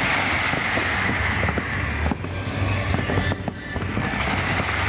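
Aerial fireworks going off in a dense barrage: many rapid crackles and pops over a continuous hiss and a low rumble.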